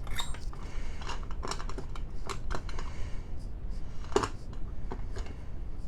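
Irregular light clicks and knocks of fire alarm pull stations being handled, over a low steady hum.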